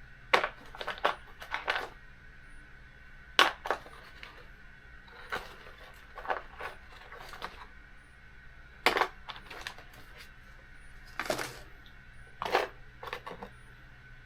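Small metal parts and tools clinking and clattering on a workbench while being handled, about a dozen sharp, irregular clicks with short gaps between them.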